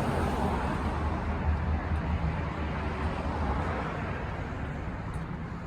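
Street traffic: a car passing with engine rumble and tyre noise, swelling early on and slowly fading.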